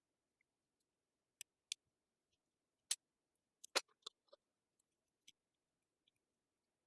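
Scattered sharp metallic clicks and taps of lock picks working in a padlock, about seven in all, the loudest a little before the middle and just under two-thirds of the way in.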